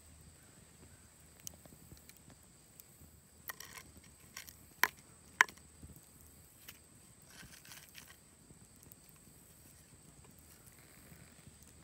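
A flat wooden stick scraping briefly on a stone slab as it is worked under a flat wheat cake cooking by the fire, with two sharp clicks a little over half a second apart near the middle.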